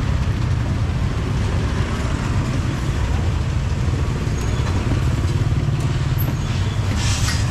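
Steady low rumble of motor vehicle engines in street traffic, with a short hiss near the end.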